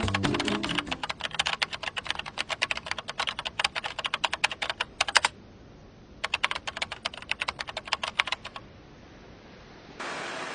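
Typing sound effect of rapid keyboard key clicks, several a second, in two runs: about five seconds of typing, a pause of about a second, then about two and a half seconds more. Background music fades out in the first second.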